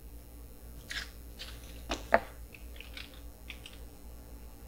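Faint clicks and light scrapes of a tape measure, square and pencil being handled against a plywood workpiece while measuring and marking, the sharpest click about two seconds in. A low steady hum runs underneath.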